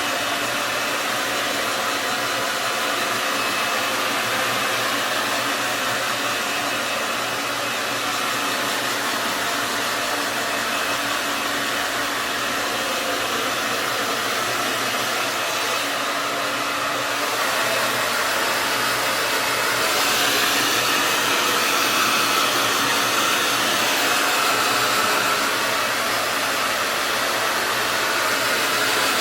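Handheld hair dryer running steadily as it blows hair dry: a continuous rush of air over a low motor hum. It grows a little louder and brighter about two-thirds of the way through.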